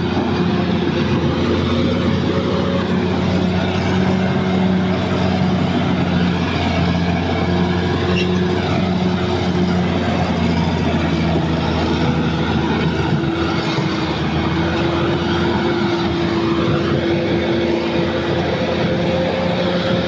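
Caterpillar D6R XL bulldozer's diesel engine running steadily as the crawler drives forward: an even, continuous drone whose pitch sags slightly in the second half and then recovers.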